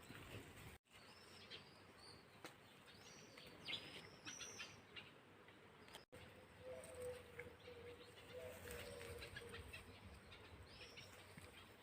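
Faint birdsong outdoors: short high chirps and twitters from small songbirds, thickest in the first few seconds and again near the end. A faint steady hum comes in about halfway through. Two brief gaps of dead silence break the sound.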